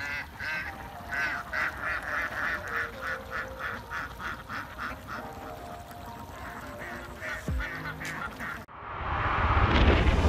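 A flock of domestic ducks quacking, many calls in quick succession at about three a second. Near the end it cuts abruptly to a rising whoosh sound effect.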